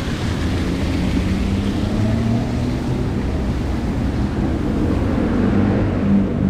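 Steady city street noise: a low rumble of traffic, with the splashing of a fountain fading out over the first few seconds.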